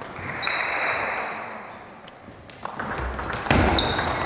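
Table tennis ball clicking and pinging off the bats and the table, a few hits at first and a quicker run of them near the end as a rally starts. In the first two seconds a wash of noise fades away.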